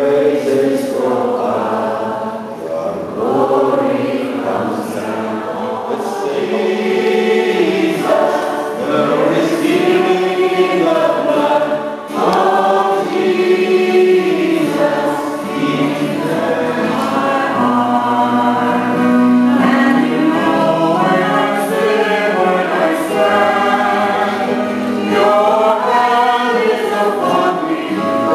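A congregation singing together in worship, many voices on long held, gliding notes.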